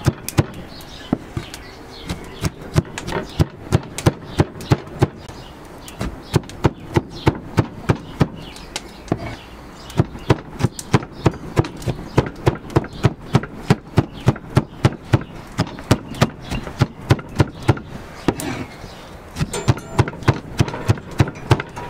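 Cleaver chopping onion and bell peppers on a wooden cutting board: a steady run of sharp knocks, about three or four a second, with a short break near the end.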